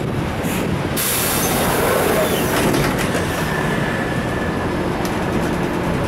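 Ride noise inside a moving Mitsubishi city bus with its windows open: the engine running, the body rattling, and road and wind noise coming in through the open window. The hiss grows louder about a second in.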